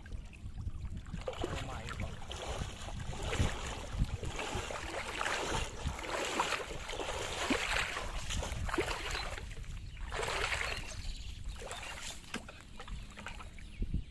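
Water sloshing and splashing in irregular surges of a second or so, over a steady low rumble.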